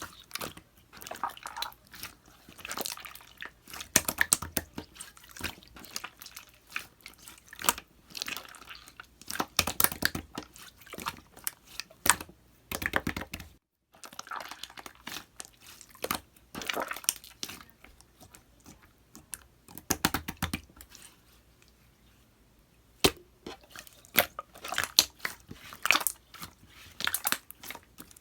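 Hands squishing, folding and stretching clear slime, with irregular sticky clicks and wet pops. There is a short break a little before halfway and a quieter stretch later on, ended by one sharp click.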